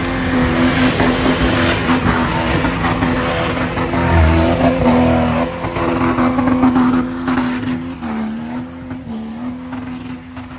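Off-road 4x4's engine running loud, its pitch rising and dipping with the throttle, then fading away over the last two seconds or so.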